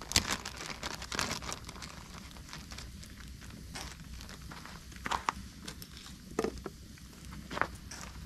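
Wood campfire burning and crackling, with a few irregular sharp pops from the burning logs.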